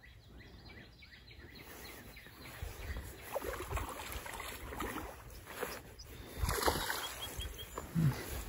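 A hooked bass splashing and thrashing at the pond's surface as it is reeled in toward the bank; the irregular splashes start about two seconds in and grow louder toward the end.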